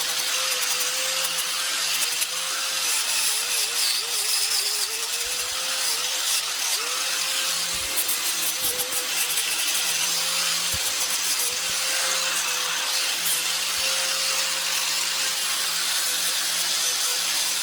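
5-inch electric grinder with an 80-grit sanding disc running steadily against wood, its motor pitch sagging now and then under load.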